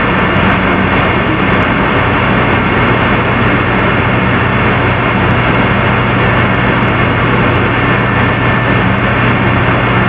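Loud, steady rushing noise with a constant low hum running under it, unchanging throughout.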